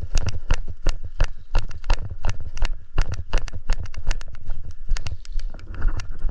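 A quick, irregular run of sharp knocks and clicks, several a second, each with a low thud beneath it.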